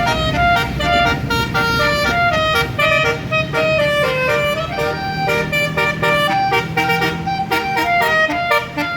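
A tour bus's basuri telolet horn playing a quick melody of short notes, over the low rumble of the bus engine.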